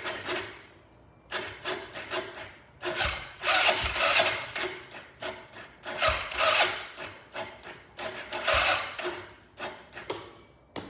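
ATV's electric starter cranking the engine in about four short bursts, each a second or less, with the engine not catching: a no-start.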